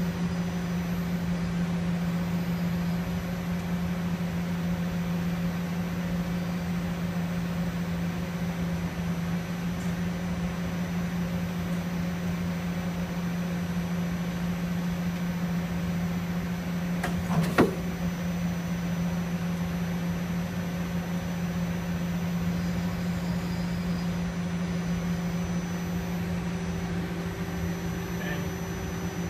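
Daewoo Puma 2000SY CNC lathe running with a steady machine hum, with a single sharp click about 17 seconds in.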